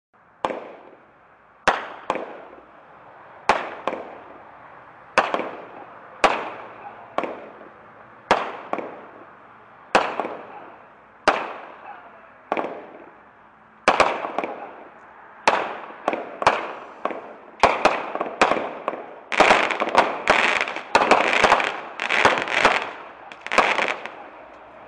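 Consumer fireworks cake firing shot after shot, each a sharp bang with a fading echo, about one every second to second and a half. The shots come faster over the last five seconds, a rapid dense volley of overlapping bangs.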